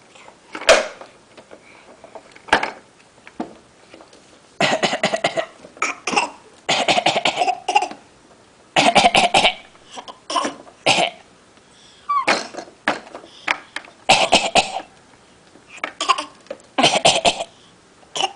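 A boy and his grandfather coughing on purpose in a coughing contest: about a dozen short bouts of forced coughs, each a quick run of hacks, with brief pauses between.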